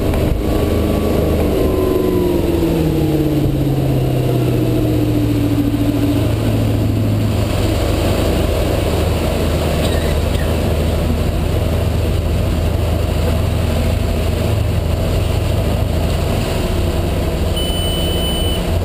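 Volvo Penta V8-270-C-A 5.0 L V8 sterndrive engine running at cruising speed under water and wind noise; its pitch falls over the first few seconds, then holds steady. Near the end comes a single high electronic beep of about a second: the engine-monitored malfunction warning, whose stored code pointed to a faulty throttle position sensor.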